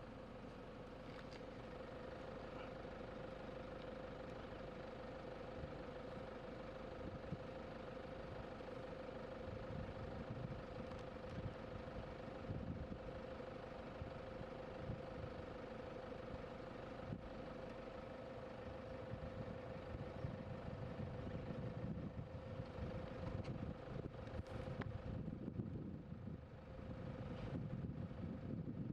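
Vehicle engine idling faintly and steadily, with a steady hum and a low rumble underneath.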